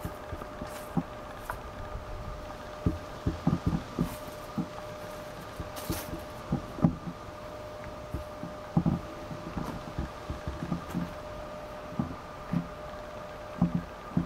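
Soft, irregular low thumps and bumps on the camera's microphone over a faint steady hum.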